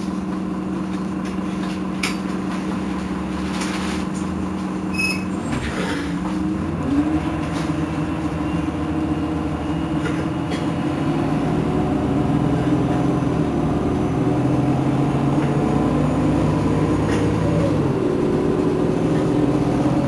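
Irisbus Citelis Line city bus idling at a stop: a steady engine hum whose pitch shifts a few times, with a few short clicks and hisses in the first six seconds.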